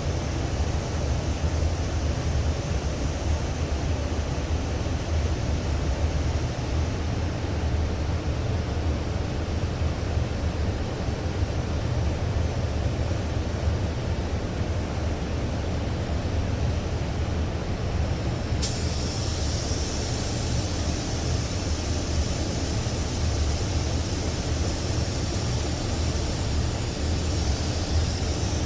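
Steady low rumble of shop machinery. About two-thirds of the way in, a spray gun starts with a sudden, steady high air hiss as it lays down thick primer surfacer at low air pressure to build a crimped texture.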